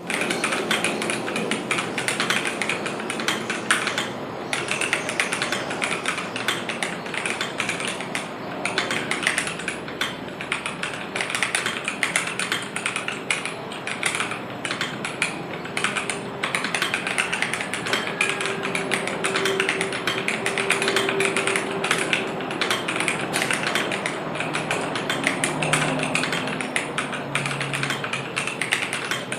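Continuous fast typing on a KBDFans KBD67 Lite R2 mechanical keyboard with stock Boba U4T tactile switches, a polycarbonate plate and PBT Cherry-profile keycaps: a dense, steady stream of keystrokes.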